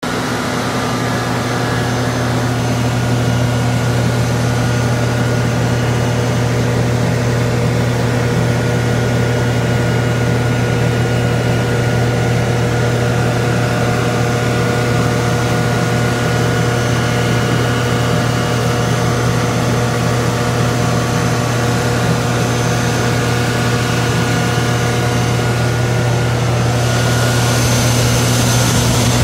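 Generac 25 kW standby generator's Fiat propane engine running at a steady, even speed, a constant low drone with a steady pitch. Near the end a louder rushing hiss of air joins it.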